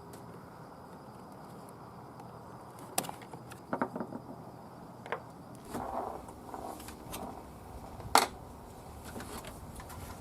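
Scattered clicks and knocks of plastic parts being handled as the wiring harness connector is worked off the shifter assembly, with one sharp, loudest click about eight seconds in.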